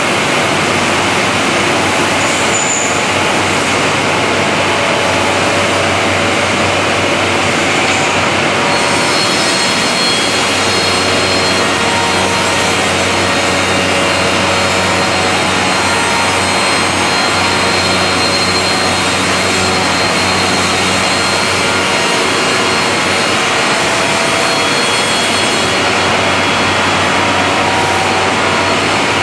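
SMM101 automatic CNC corner-joint cutting machine running, its cutters sawing wood with a loud, steady noise.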